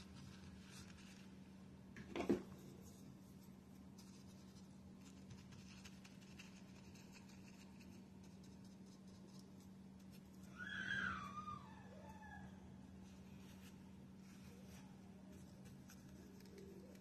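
A quiet room with a steady low hum. A short sharp sound comes about two seconds in, and near the middle there is an animal's short call that falls in pitch.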